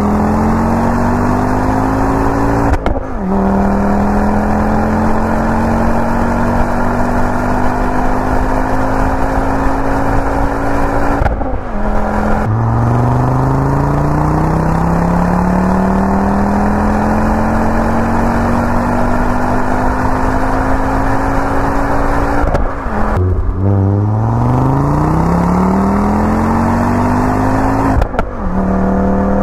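Car engine accelerating hard through the gears: in each gear the pitch climbs and then levels off, and it drops sharply with a brief break at each of several shifts.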